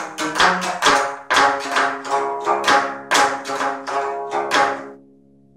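Geomungo, the Korean six-string zither, played solo with a bamboo plucking stick: a quick run of notes, each with a sharp percussive attack and a ringing tone. The notes die away into a short pause near the end.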